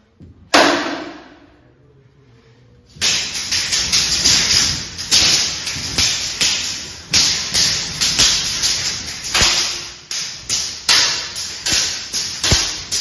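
Kalaripayattu weapon sparring with urumi flexible swords and round shields: one sharp metal strike just after the start, then from about three seconds in a rapid, steady run of blade-on-shield clashes, two to three a second, each ringing out in the echoing hall.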